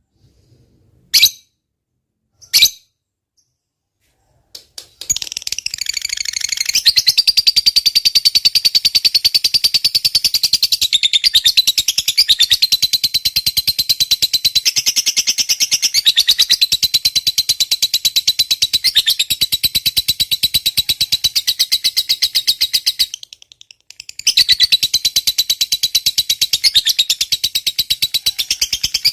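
Lovebird giving a few short chirps, then its long 'ngekek' song: a rapid, unbroken, high chattering trill lasting many seconds. It pauses briefly once, then resumes.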